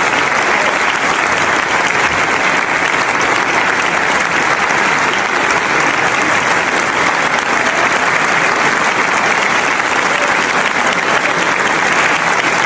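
Large crowd clapping and cheering steadily, a dense, unbroken wash of applause.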